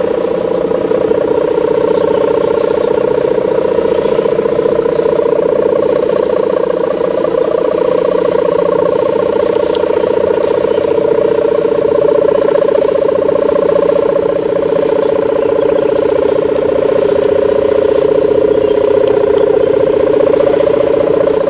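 Sendaren hummer on a flying pegon kite, its mika (plastic film) ribbon vibrating in the wind with the deep buzzing 'gerr' drone. The drone is loud and steady, wavering slightly in pitch.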